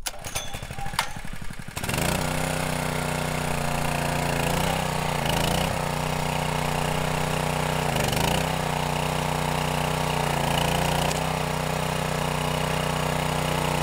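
Small engine of a walk-behind Christmas tree cutter starts about two seconds in and then runs steadily, its pitch dipping briefly several times as it takes load while the machine cuts through a tree trunk.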